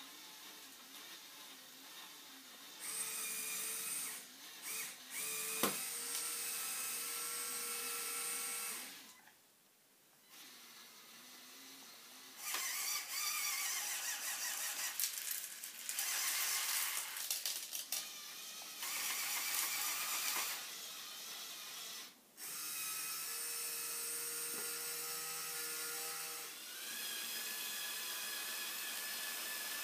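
Electric motors of a Lego Technic 42100 Liebherr R 9800 excavator model whining as its boom, stick and bucket move. They run in spurts of a few seconds with short pauses, the pitch sliding up and down in places, with one sharp click about six seconds in. Near the end a steadier motor whine starts as the Lego dumper truck drives off.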